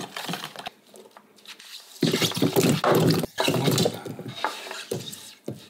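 Cubed white radish scraped off a bamboo cutting board and tumbling into a plastic container of pickling brine: a loud dense clatter of pieces dropping for about two seconds, followed by a couple of single knocks. Before that, a brief stir of a wooden spoon in the brine.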